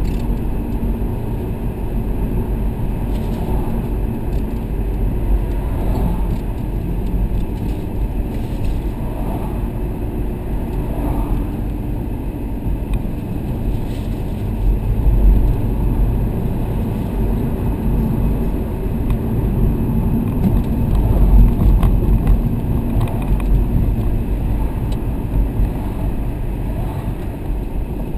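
A 2003 Audi A4's 3.0-litre V6 and tyre noise heard from inside the cabin while driving through town, a steady low rumble that swells twice in the second half as the car pulls away and speeds up.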